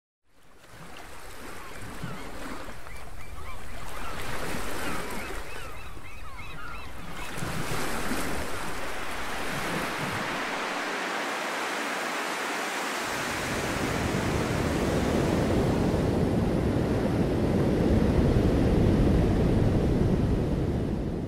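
Surf breaking on a beach, a steady rush of waves that fades in at the start and builds heavier toward the end, with short bird calls over it in the first several seconds.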